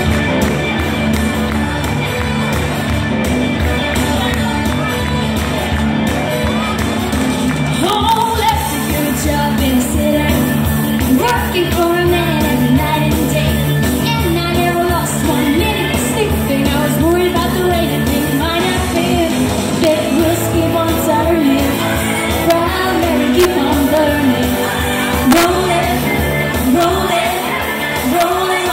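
Pop song played loud over a hall PA with a steady beat; a woman's singing voice comes in about eight seconds in and carries on over the backing music.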